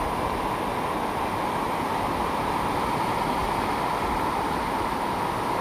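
Steady, even rush of floodwater flowing through a flooded street.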